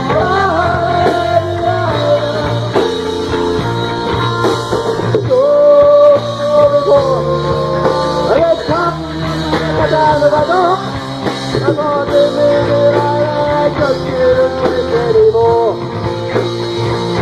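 Live rock band playing a passage without lyrics: a lead melody of long held, sliding notes over a sustained bass line.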